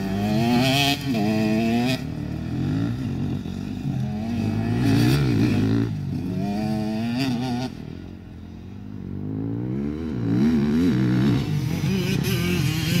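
KTM enduro dirt bikes, a 125 two-stroke and a 250 four-stroke, revving up and down repeatedly as they are ridden hard round a dirt course, with the engine pitch rising and falling over and over. The engines fade somewhat about eight seconds in, then pick up again.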